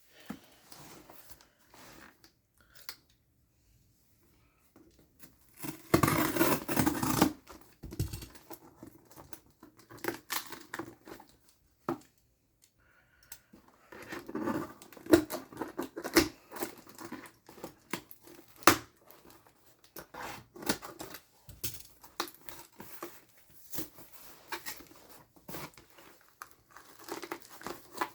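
Packaging being opened by hand: a loud tear about six seconds in, then repeated crinkling and sharp clicks and knocks of the box and wrapping being handled.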